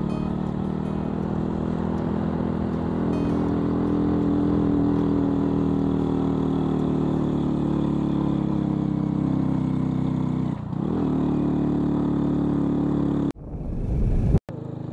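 Motorbike engine running steadily while riding. There is a brief dip about two-thirds of the way through, and the sound cuts off abruptly twice near the end.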